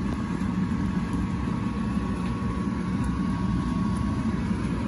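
A steady low mechanical hum, as of a motor or fan running, with a faint thin whine that stops near the end.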